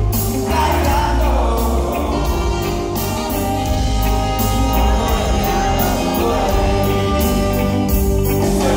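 Live reggae band playing: a steady bass line and drums with guitar and keyboards, and a male lead singer over them, heard from within the audience.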